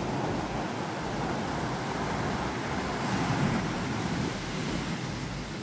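Steady rushing noise of ocean surf on a sandy beach, with wind buffeting the microphone in low, uneven rumbles.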